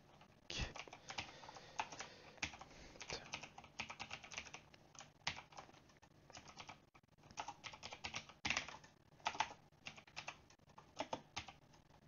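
Typing on a computer keyboard: irregular runs of key clicks, with a short pause about halfway through.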